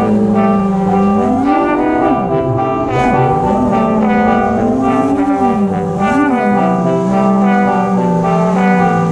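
Brass-led music: a low brass line slides up and down in pitch over steady sustained chords.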